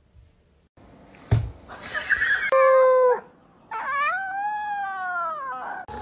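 Husky puppy howling: a knock about a second in, then a short loud cry held on one pitch, then a longer howl that rises and falls.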